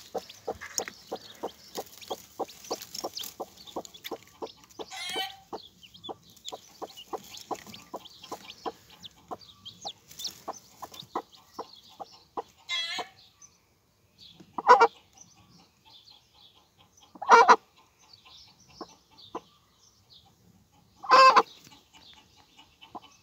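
Broody mother hen clucking over her newly hatched chicks, a run of short clucks about three a second, with faint high peeping. In the second half she gives three loud squawks, a defensive hen guarding the nest.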